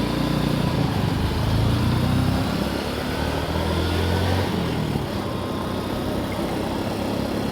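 A motor vehicle's engine running steadily with a low hum, a little louder in the first half.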